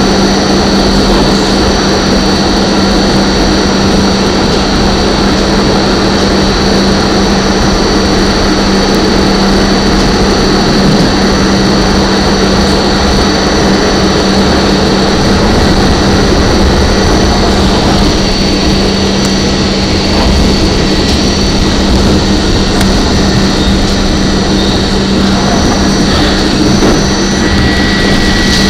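An R44 subway car running at speed, heard from inside the car: a loud, steady rumble of the moving train with a constant low hum and a thin high whine.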